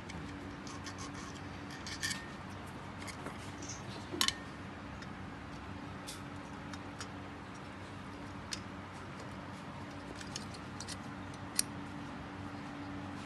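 Small metallic clicks and taps from handling the aluminium alternator housing and its rectifier plate as the new rectifier is fitted over the stud bolts. The clicks are scattered, with the loudest a close pair about four seconds in. A steady low hum runs underneath.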